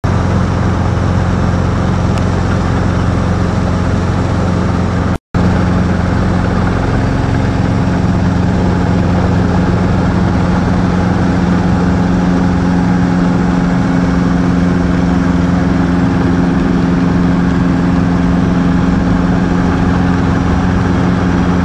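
Robinson R22 Beta helicopter's four-cylinder piston engine and rotor system running steadily, heard from inside the cockpit. The sound cuts out for an instant about five seconds in.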